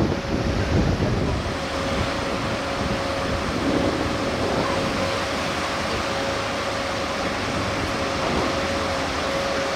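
Shannon-class lifeboat running at speed through breaking waves: a steady engine whine over loud wind and surf noise.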